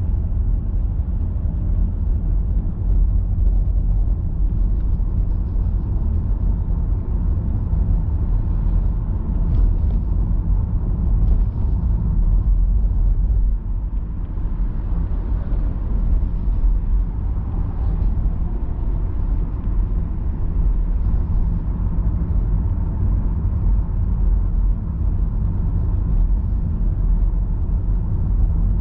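Steady low rumble of a car being driven through city traffic, heard from inside the cabin: engine and tyre road noise.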